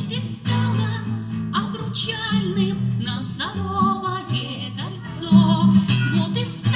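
A woman singing to acoustic guitar accompaniment; the held notes waver with vibrato over steady strummed chords.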